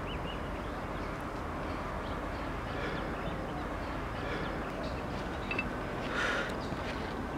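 Steady outdoor background noise: an even hiss with a low rumble underneath, and a faint brief call about six seconds in.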